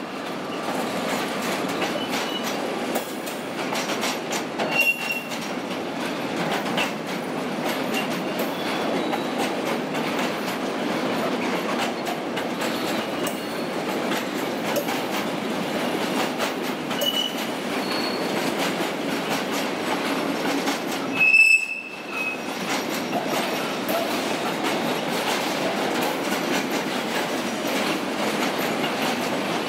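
A train rolling through the station with a steady rumble of wheels on rail. Short, high wheel squeals come a few times: about 5 s in, around 17 s, and loudest at about 21 s.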